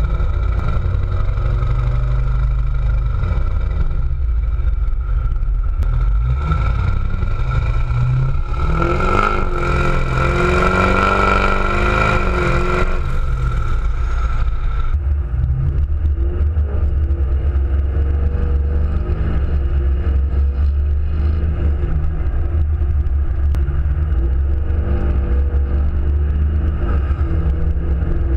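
LB7 Duramax 6.6-litre V8 turbo-diesel with a 4-inch straight-pipe exhaust, heard from outside, idling and then revved up and down repeatedly, loudest about nine to thirteen seconds in. From about fifteen seconds it is heard from inside the cab while cruising, as a steady low drone.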